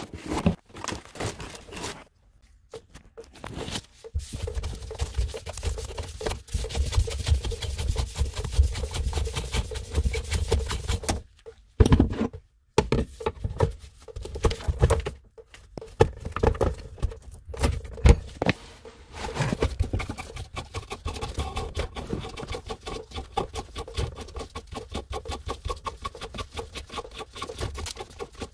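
Close-up handling noise of work under a kitchen sink: a steady run of small scrapes, taps and rattles as a gloved hand works on the faucet's supply-line connections, with a few louder knocks.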